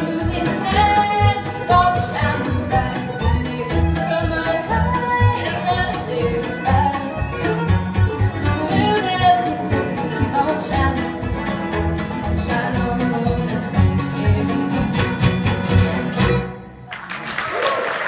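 Bluegrass band of fiddles, mandolin, acoustic guitar and upright bass playing to a steady driving beat. Near the end the tune stops and applause starts.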